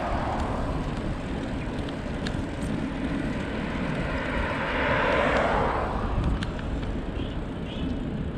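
Wind rumbling on the microphone of a moving bicycle, with a car passing in the oncoming lane: its tyre and engine noise swells to loudest about five seconds in, then fades.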